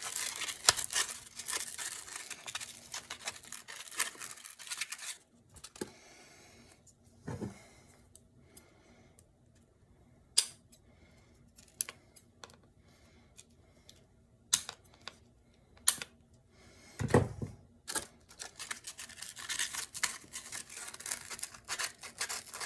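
Hand sanding inside a motorcycle air box with 150-grit sandpaper: quick scratchy rubbing strokes for about five seconds, a pause with a few scattered clicks and knocks, then fast sanding again for the last few seconds.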